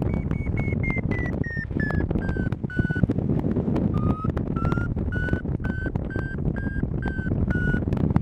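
Paraglider variometer beeping about three times a second. Its pitch falls over the first three seconds, it stops for about a second, then it resumes lower and rises again: the climb in a thermal weakening, then picking up. Under it, wind rushes over the microphone.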